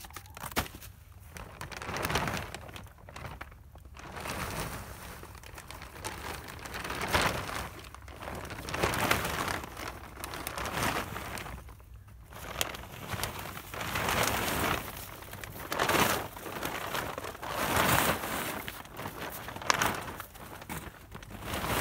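A plastic tarp rustling and crinkling as it is pulled back off a straw bale, in repeated swells every second or two.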